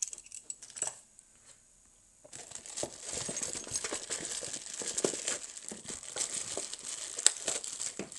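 A few light metallic clicks as a small lock is handled and set down, then, from about two seconds in, continuous crinkling of packaging as hands rummage through it.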